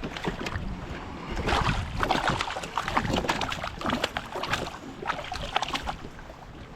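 Irregular knocks, rattles and small splashes in a jon boat as a smallmouth bass is brought aboard and handled.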